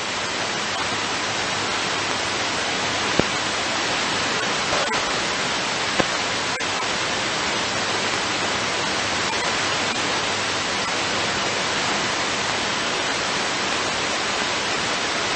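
Steady radio static hiss from an airband receiver, with no transmission on the frequency. There are two short clicks, about three and six seconds in.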